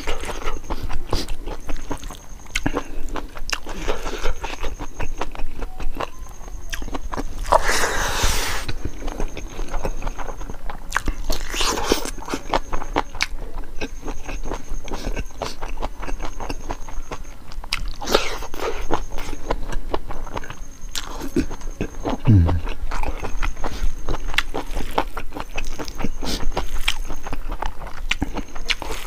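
Close-up eating sounds: fingers squelching and mixing rice with chicken gizzard curry gravy, and chewing with lip smacks, in many small clicks, with a couple of louder scooping rustles.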